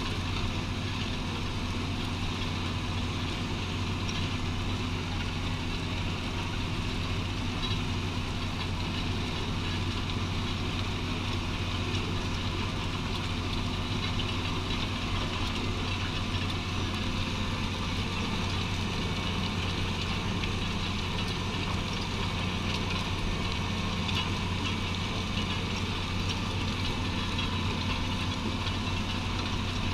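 Tractor engine running at a steady speed, with no change in pitch throughout.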